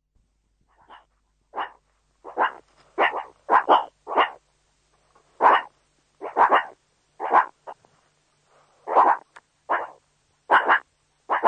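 An animal barking: a run of about twenty short barks, coming singly and in quick pairs at an uneven pace, starting about a second in.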